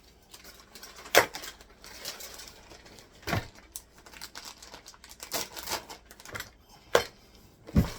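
Scattered clicks and sharp knocks of kitchen handling, utensils and dishes being set down and tapped: one about a second in, one about halfway, and two near the end, with faint small clicks between.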